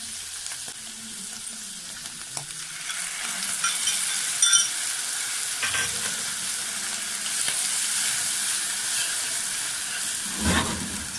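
Mushrooms sizzling in butter in a frying pan over a gas flame, with tomato paste added; the sizzle grows louder about three seconds in. A few metallic clinks come around four to five seconds in, and a metal spoon stirs and scrapes in the pan near the end.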